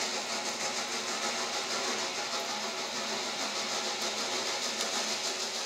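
Steam locomotive sound running on: a steady hiss with a fast, faint, even beat, starting to fade near the end.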